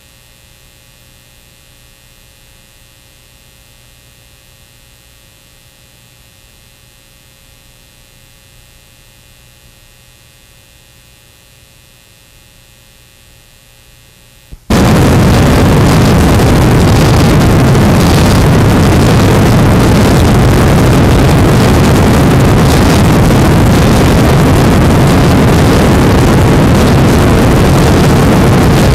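Faint, steady electrical hum for about the first fifteen seconds, then a sudden cut to the loud, steady rush of an offshore powerboat running fast across open water.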